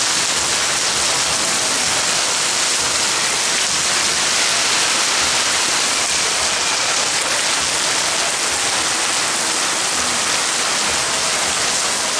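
Heavy wind-driven rain pouring down, a dense, even hiss that holds steady throughout.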